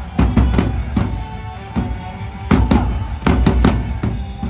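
Loud stadium cheer music with heavy drum hits coming in irregular clusters over the tune.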